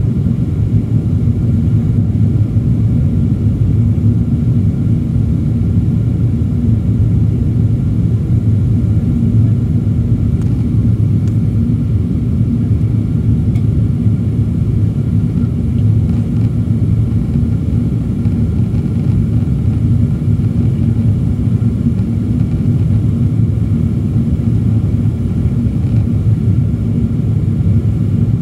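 Boeing 777-300ER cabin noise in flight, heard from inside the cabin: a steady, even rumble of engines and airflow with a low hum that does not change.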